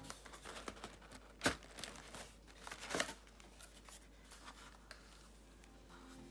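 Tissue paper in a gift box crinkling as hands handle the contents, a string of faint crackles with two sharper rustles about a second and a half and three seconds in.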